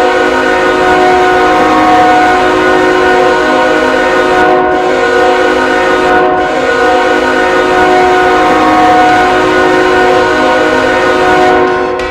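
Goal horn blowing a loud, steady chord of several tones, held for about twelve seconds and cutting off just before the end.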